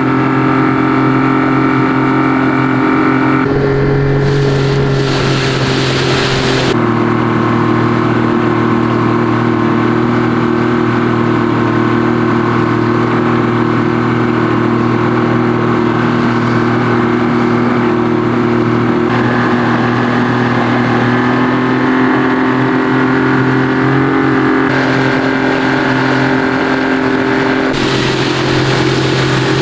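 Yamaha 50 hp outboard motor running under way on the water at a steady pitch, with a few sudden shifts in its note. It is being tested for a whistling noise reported in the motor.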